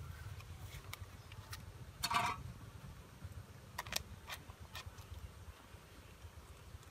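Fresh banana leaf crinkling and crackling as hands fold it into a parcel: several short sharp crackles and one louder brief burst about two seconds in, over a steady low rumble.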